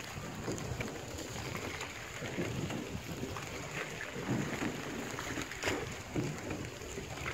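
Rowboat moving on calm water: soft, irregular splashes and drips of oars over a steady faint hiss of outdoor air.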